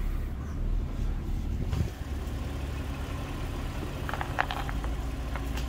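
2022 Nissan Frontier's 3.8-litre V6 idling steadily as the truck crawls over rocks at walking pace, a low hum, with a few faint crackles about four seconds in.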